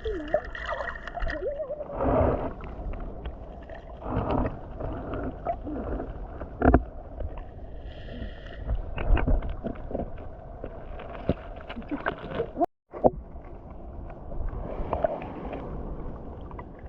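Stream water sloshing and splashing, with irregular knocks and bumps throughout and a brief break about thirteen seconds in.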